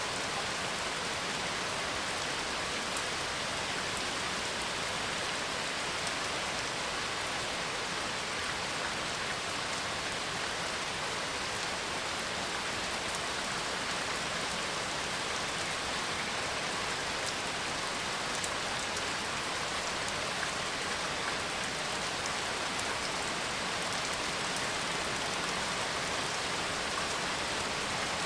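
Steady rain falling, an even, unbroken hiss of rain on a surface.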